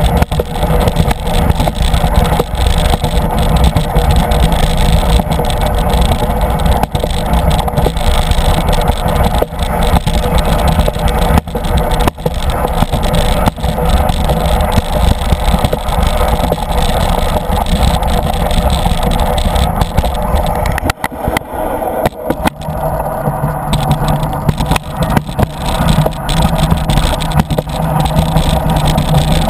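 Alpine slide sled running down its track, heard through a camera fixed to the sled: a loud, steady rumble with rattling and knocks, with a short lull about two-thirds of the way through.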